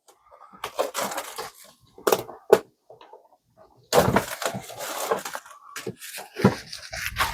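Cardboard trading-card box and its plastic wrapping being torn and pried open: crackling, rustling tears in several bursts, with a few sharp snaps.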